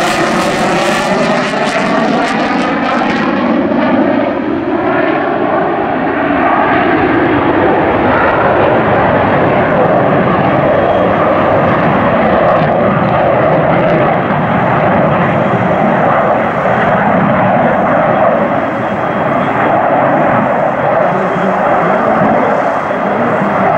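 Lockheed Martin F-22 Raptor's twin Pratt & Whitney F119 afterburning turbofans, loud jet engine noise from the fighter flying its display. It opens with a falling, phasing whoosh as the jet passes, then settles into steady jet noise for the rest.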